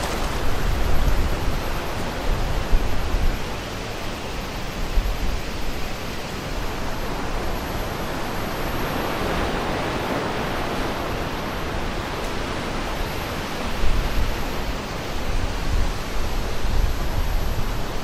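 Wind blowing over the microphone: a steady rushing noise with low rumbling buffets in the first few seconds and again near the end, and a swell of rushing around the middle.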